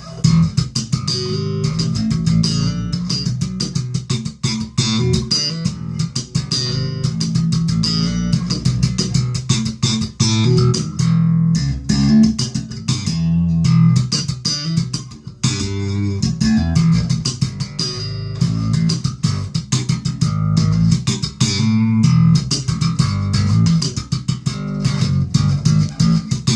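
Alembic Series 2 electric bass played solo, a continuous run of quick plucked notes through both pickups, with the onboard filter Q controls set halfway.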